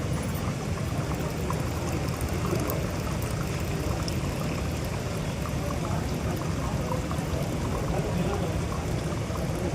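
Water pouring steadily from a bamboo fountain, a continuous splashing trickle.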